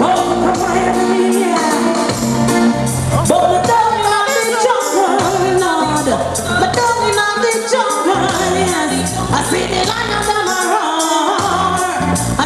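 A woman singing live over a reggae sound-system backing track, with a deep bass line and a steady hi-hat beat.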